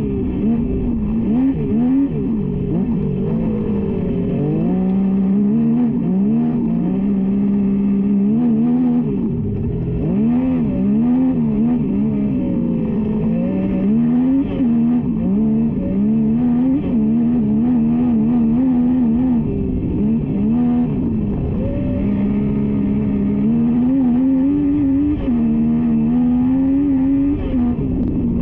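Onboard engine of an AJC MT09 kart cross running hard on a dirt track, its pitch rising and falling again and again as the driver accelerates and lifts off through the corners.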